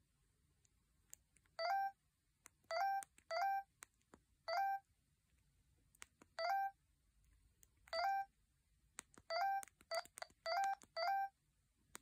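Huawei U2800 feature phone's keypad tones: about eleven short beeps of one pitch at irregular intervals as its keys are pressed to move through the menus, with a few faint key clicks between them.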